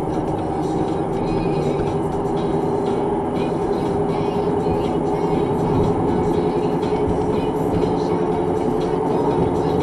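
Steady engine and tyre drone inside a moving car's cabin, picked up by a Prestigio RoadRunner 519 dashcam's microphone, with music playing underneath.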